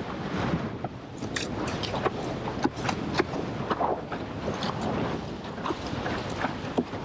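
A windsurf board, a 90-litre freestyle wave board, is skimming fast over choppy water. Its hull slaps on the chop in quick, irregular knocks, over a steady rush of water and wind buffeting the microphone.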